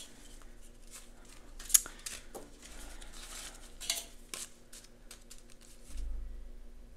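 Paper banknotes being handled and shuffled on a table, with soft rustles and scattered light clicks and one sharp tap a little under two seconds in.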